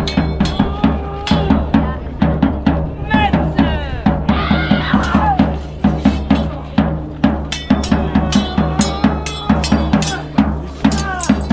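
Drums beating a fast, steady rhythm over a low held drone, with voices calling out over it.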